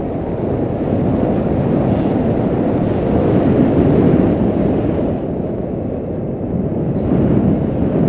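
Wind buffeting the camera's microphone during a tandem paraglider flight: a loud, low rush with no engine or tone in it, growing stronger towards the middle, easing, then rising again near the end.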